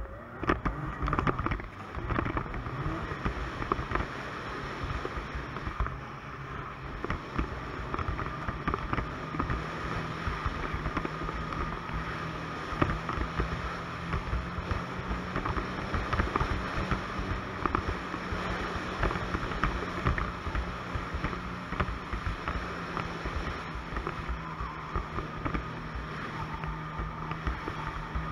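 Ski-Doo Expedition 900 ACE snowmobile's three-cylinder four-stroke Rotax engine running under way, with track and wind noise. It picks up speed in the first couple of seconds, then holds a steady cruise.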